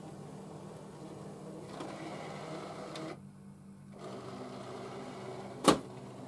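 Brother ScanNCut DX cutting machine scanning, its scanner motor running steadily as it draws the mat through, dropping out briefly about three seconds in. A single sharp click near the end.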